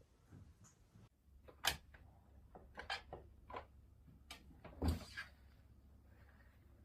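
A series of irregular knocks and clicks, like things being handled or doors and cupboards moved, the loudest about five seconds in.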